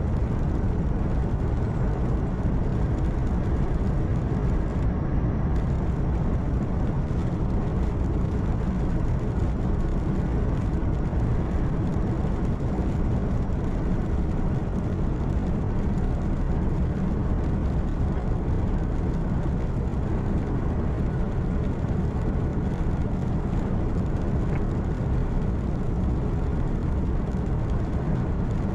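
Steady drone of a truck's engine and rolling road noise heard inside the cab at cruising speed, a constant low rumble.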